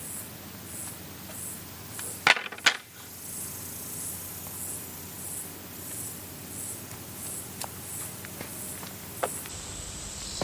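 Insects chirping in a steady high rhythm, about two chirps a second, with two sharp clacks a little over two seconds in and a few faint ticks later.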